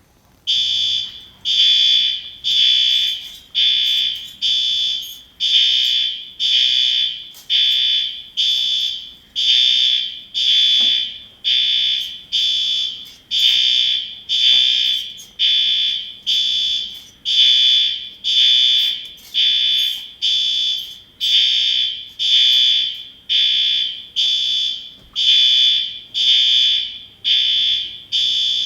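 Fire alarms sounding: a loud, high-pitched tone pulsing about once a second, starting about half a second in.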